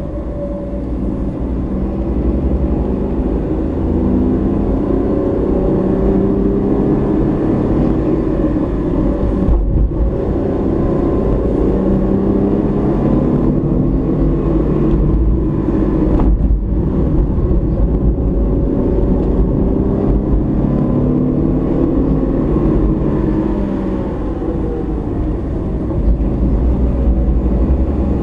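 Car engine and tyre/road noise heard through a dashcam inside a moving car, the engine note rising and falling with road speed over a steady low rumble.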